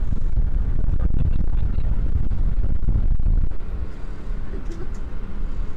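Boat under way: its motor running with wind buffeting the microphone, a loud low rumble that eases a little about three and a half seconds in.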